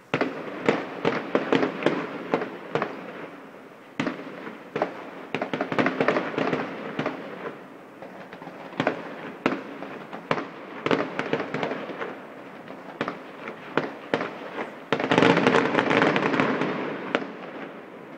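Fireworks display: clusters of sharp bangs and crackles from bursting shells, ending in a dense crackling barrage about fifteen seconds in, the loudest part, which then fades.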